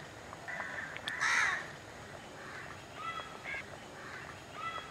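A crow caws about a second in, followed by a few fainter, shorter calls.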